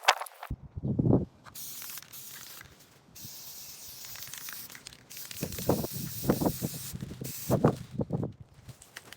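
Aerosol spray paint can hissing in long stretches as the tank is sprayed, with a few low rumbling thumps in between.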